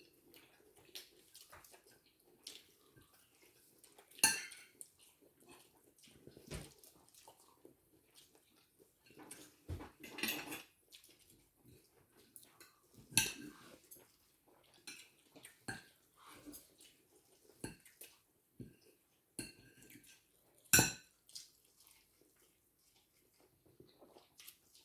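Cutlery clinking and scraping against plates and bowls during a meal, at irregular intervals, with faint quieter eating noises in between. The sharpest clinks come about four seconds in and again near twenty-one seconds.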